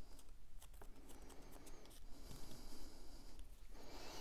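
Small cardstock pieces handled between the fingertips: light ticks and paper rustling, with a louder rush of noise near the end.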